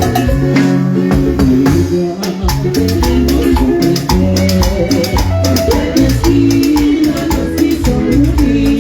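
Live band playing an instrumental stretch of a Latin dance song: a bass line and melody over rattle-type percussion ticking steadily on the beat, with no singing.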